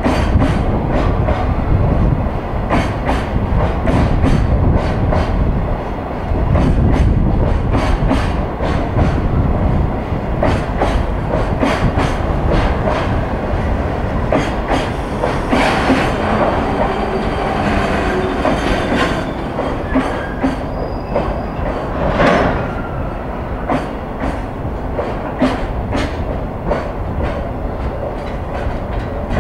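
Container wagons of a freight train passing at speed, a steady rumble with regular, rapid wheel clacks over the rail joints. About halfway through, a high, steady wheel squeal rises over the clatter for a few seconds, and again briefly a little later.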